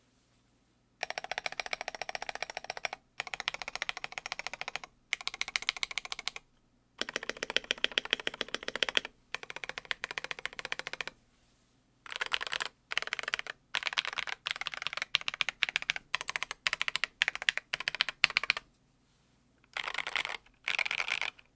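Typing on a KBD67 Lite R3 gasket-mount keyboard with an ABS case, Moyu Queen linear switches and MT3 Cyber keycaps: runs of rapid keystrokes lasting a second or two, separated by brief pauses. After the first second of quiet the runs are long; they grow shorter and choppier in the second half.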